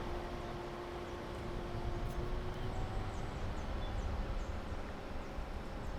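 A vehicle's engine humming steadily over a low road rumble, its tone slowly dropping in pitch, with faint high chirps in the background.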